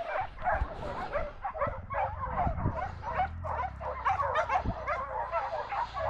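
Hunting hounds yelping and baying continuously in quick, overlapping cries, the sound of dogs giving tongue as they run a scent trail in a chase. A low engine hum, a dirt bike idling, comes in underneath about halfway through.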